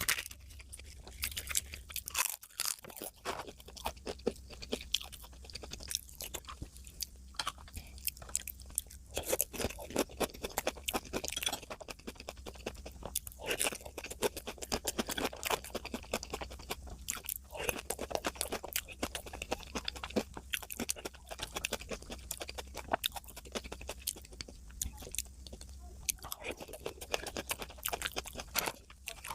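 Close-miked chewing and crunching as a person eats a meal of curry, rice and salad: a dense, continuous run of mouth clicks and crunches, over a faint steady low hum.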